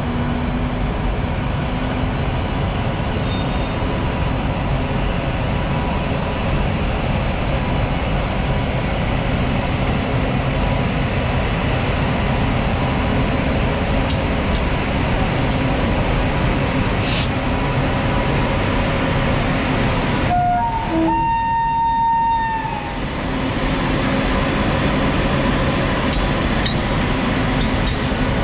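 Goods train hauled by a WAG-9 electric locomotive rolling past, a steady loud rumble of wheels and wagons with a few sharp clicks partway through. About three-quarters of the way in the rumble briefly drops and a few short steady tones sound.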